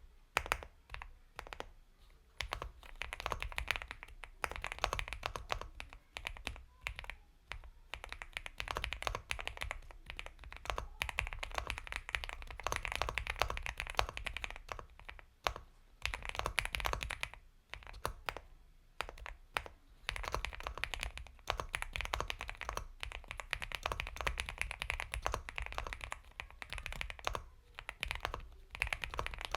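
Continuous typing on an Epomaker x Feker Galaxy 80 mechanical keyboard with Gateron Milky Yellow Pro linear switches: fast runs of soft keystrokes, broken by short pauses every few seconds.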